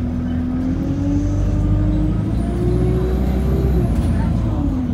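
Bus engine running with a heavy low rumble, its pitch rising over a couple of seconds as it pulls away and then dropping back near the end, heard from inside the bus.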